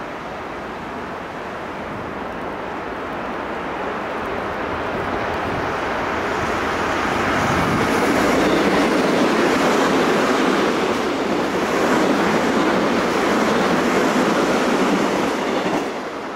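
Korail commuter electric multiple unit approaching and passing at speed: the rumble of its wheels on the rails grows louder for several seconds, then stays loud with a clickety-clack as the cars go by, and cuts off abruptly near the end.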